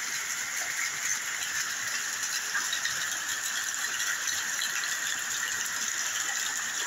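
Rain coming down steadily: a dense, even hiss of countless drops.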